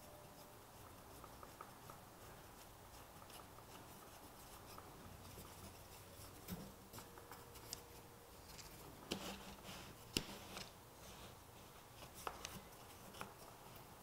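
Quiet room tone with a few light clicks and taps, mostly in the second half, from small hardware and plywood parts being handled and fitted together.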